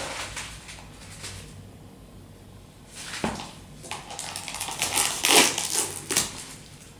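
Plastic film lid crinkling and crackling as it is peeled off a plastic ready-meal pasta cup, starting about three seconds in and loudest near the end, after a brief rustle of handling at the start.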